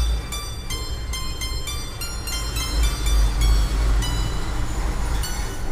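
A phone ringtone playing from the Zedge app: quick runs of short, high-pitched notes, about three or four a second, over a steady low rumble.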